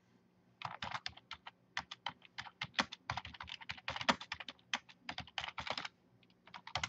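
Typing on a computer keyboard: quick, irregular key clicks starting about half a second in, with a short pause near the end.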